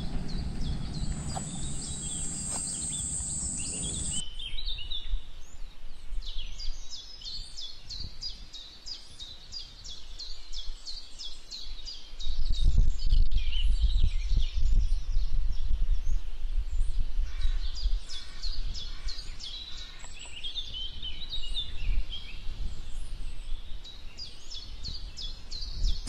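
Tropical forest sounds: birds chirping in short, repeated high calls, with a steady high insect buzz that stops about four seconds in. A low rumble on the microphone is loudest around the middle.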